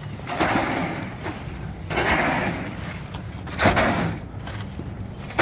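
Plastic-wrapped cases of bottled water being handled and set down in a pickup truck's bed: a few bouts of rustling, with a knock about three and a half seconds in.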